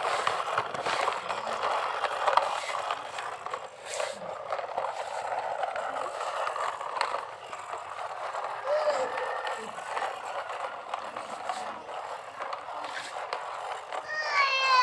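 Toy trucks and an excavator being played with: a steady scraping, rattling rolling noise with scattered clicks.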